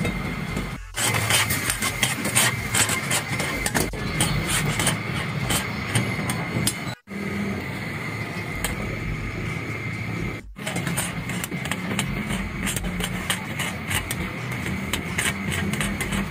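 Chicken frying in hot oil in a steel karahi over a high gas flame: dense sizzling and spattering crackle over the steady roar of the gas burners. The sound breaks off for an instant three times.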